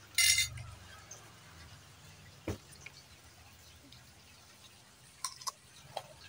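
Clip-on lavalier microphone being handled up close: a short loud rustle just after the start, then a few scattered soft clicks and taps.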